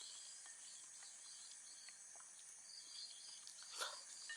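Faint, steady high-pitched chirring of insects outdoors, with one short eating sound near the end.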